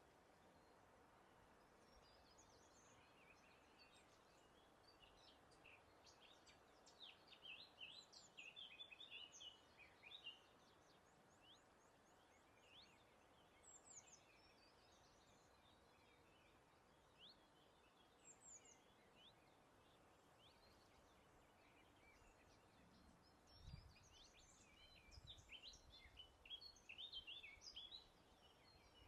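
Faint birdsong: several birds singing quick high chirps and trills in bursts, busiest a quarter of the way in and again near the end, with scattered single notes between. Under it runs a steady, faint breeze hiss, with a couple of brief low rumbles near the end.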